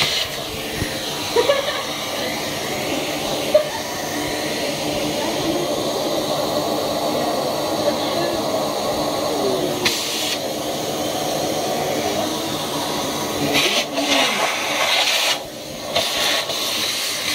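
Vacuum cleaner motor running steadily with a whining hiss, its hose being used to try to suck a rat out from under a kitchen fridge; the sound dips briefly about three-quarters of the way through.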